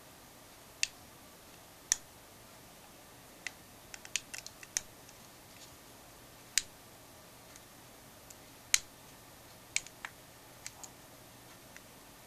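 Sharp, irregular clicks and taps from a handheld plastic power bank being handled and turned over in the hand, with a quick run of small clicks about four seconds in.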